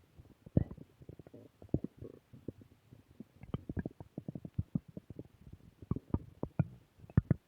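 Stomach growling: a rapid, irregular run of gurgling pops and squelches.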